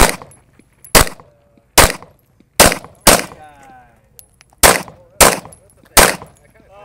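Semi-automatic pistol firing a string of eight shots, mostly about a second apart or less, with a pause of about a second and a half after the fifth shot.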